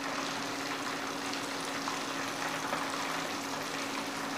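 Hot oil sizzling steadily as chicken 65 pieces deep-fry in a steel pan, a continuous fine crackling hiss, with a steady low hum underneath.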